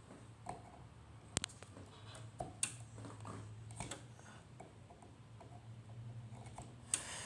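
Handling noise: a few sharp clicks and light knocks, the loudest near the end, over a faint steady low hum.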